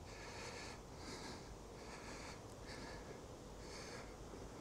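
A person breathing close to the microphone, faint short breaths in and out at a regular pace.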